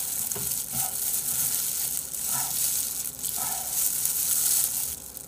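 Clear disposable plastic gloves crinkling and crackling as both hands squeeze and mash a rice ball, a dense, uneven crackle throughout.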